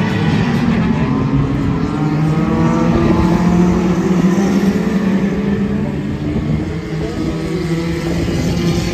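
Junior Rods small hatchback racing cars' engines running hard as a pack laps the oval, several engine notes overlapping, rising and falling in pitch as the cars pass and lift off for the bends.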